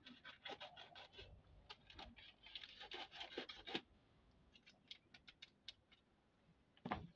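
A knife scraping and slitting open a plastic sachet: a string of short scratchy rasps over the first four seconds, then a louder rustle near the end.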